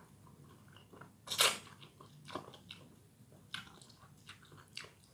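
Close-up eating sounds of a person eating bakso Malang: biting and chewing, with several short, sharp mouth noises, the loudest about a second and a half in.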